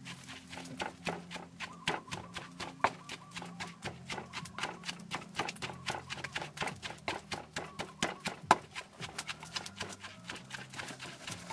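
Wooden pestle pounding chilies, garlic, salt and tomato in a wooden mortar: quick, uneven knocks, about three or four a second, with a few much harder strikes.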